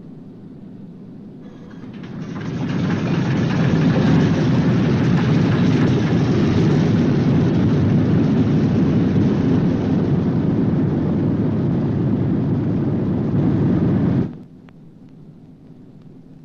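A B-29's number four Wright R-3350 radial engine being started after excess fuel was blown out of it. The noise builds over a couple of seconds into a loud, steady run, then cuts off suddenly near the end.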